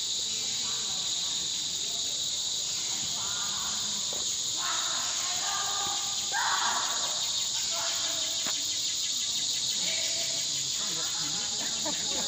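Steady, high-pitched chorus of tropical forest insects: a continuous shrill drone that does not let up.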